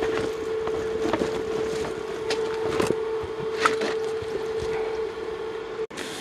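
A steady machine hum with scattered clicks and knocks over it; the sound cuts out for an instant near the end.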